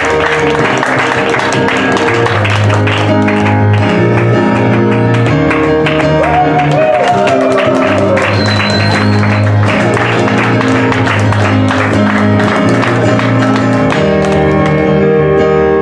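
Music playing: plucked strings over held bass notes that change every second or two.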